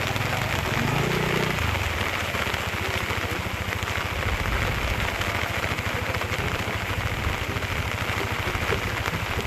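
A motorcycle engine running at low, steady revs, its exhaust pulsing evenly, under a steady hiss of falling rain.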